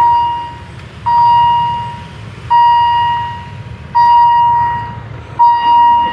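Level crossing warning signal sounding: an electronic tone repeating about once every second and a half, each note just under a second long, over a low rumble.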